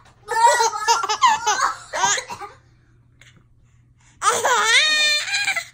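A baby laughing in two bursts: a run of quick, wavering giggles, then after a short pause a longer high-pitched squealing laugh.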